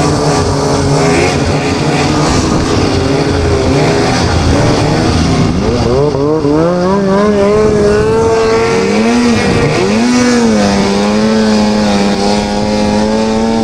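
Polaris 800 two-stroke snowmobile engine heard from the rider's seat. It runs steadily at a lower pitch, then revs up about six seconds in and holds a high steady pitch under throttle, dipping briefly twice as the throttle is eased.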